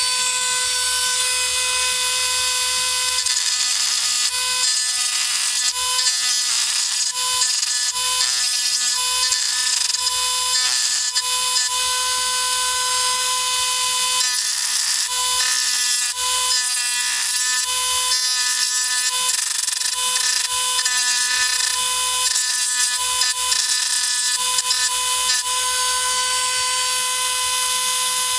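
Small high-speed rotary tool running continuously with a steady high whine, its bit biting in and out as it drills out the rivet posts of a die-cast toy car to split the body from the chassis.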